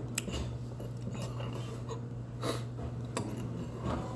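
Eating sounds: a metal spoon clicking and scraping in a heavy black pot, with a few breathy mouth noises such as a brief slurp or sniff about two and a half seconds in, over a steady low hum.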